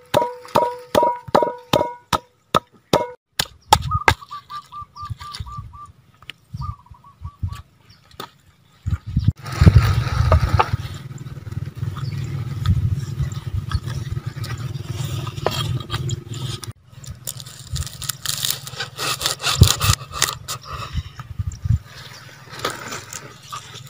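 Wooden pestle pounding in a wooden mortar: a steady run of ringing knocks, about two or three a second, that stops about three seconds in. It is followed by irregular rustling and knocking of hands working with fresh herbs and leaves, with one sharp knock near the end.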